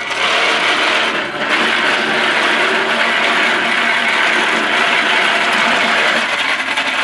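Engine-driven winch of a pile-tamping foundation rig running steadily, with a short dip a little over a second in.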